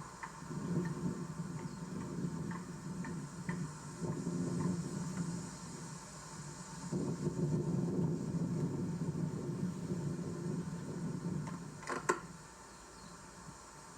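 Swarm of honeybees buzzing, a low hum that swells and fades, with a sharp click about twelve seconds in.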